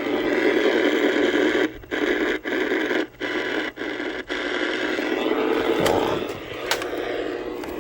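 Radio receiver putting out loud hiss and crackle of static, as with no clear station tuned in, over a faint low hum. It cuts out briefly about five times in quick succession partway through, then eases off near the end.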